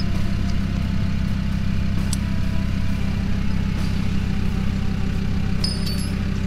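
Off-road 4x4 truck's engine idling steadily.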